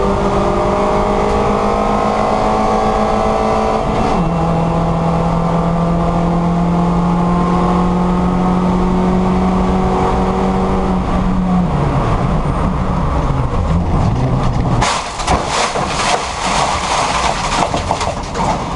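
Mini Cooper race car's 1.6-litre four-cylinder engine heard from the cockpit, holding steady high revs, with a gearchange about four seconds in that drops the pitch. Around eleven seconds in the revs fall away as it slows, and about fifteen seconds in a loud rough clatter of gravel against the car takes over as it runs into the gravel trap.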